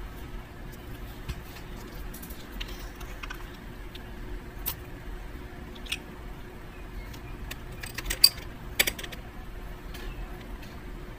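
Small plastic clicks and taps as a hobby paint jar is unscrewed and its cap and a plastic model part are handled, over a steady low background hum. The sharpest clicks come close together a little past two-thirds of the way in.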